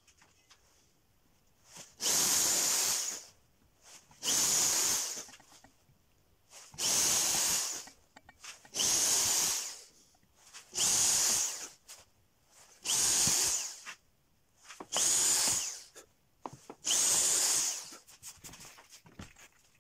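Handheld electric drill run at full speed in eight short bursts about two seconds apart, working into a wooden board.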